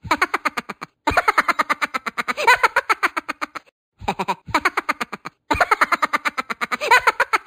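Closing jingle of rapid staccato notes, about nine or ten a second, played in short phrases with brief breaks between them; the phrase repeats.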